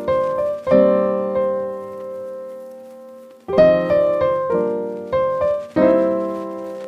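Intro music on piano: chords struck and left to ring and fade, with a fading pause about two seconds in before the chords start again.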